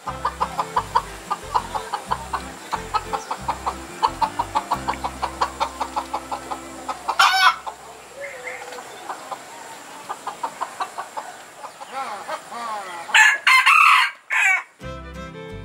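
Red jungle fowl calling: a fast, even run of short clucks for the first half, a brief crow about seven seconds in, and a loud crow in two parts near the end.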